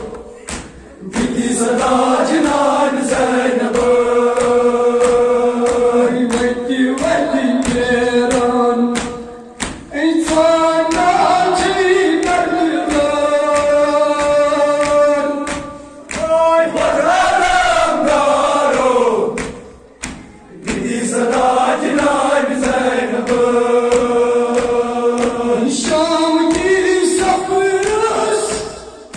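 Voices chanting a Kashmiri noha, a Muharram lament, in long sung phrases with short breaks between them. Regular thuds run beneath the chant.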